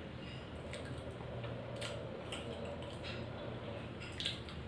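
Eating by hand: fingers mixing rice and dal on a ceramic plate, heard as scattered soft clicks and squishes.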